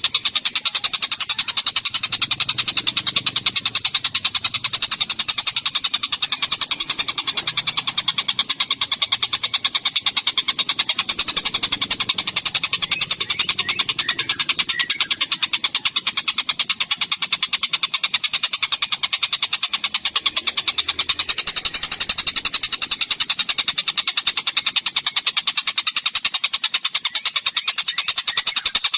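A small songbird's rapid, unbroken chattering trill, very fast even pulses held steady and high-pitched throughout, played as a looped tutor-song recording.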